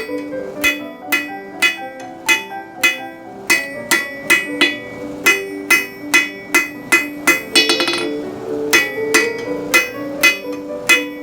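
Hammer blows on hot steel over an anvil, struck about every half second, each with a bright ring and a quick run of light, rapid taps about halfway through. Background music with plucked notes plays underneath.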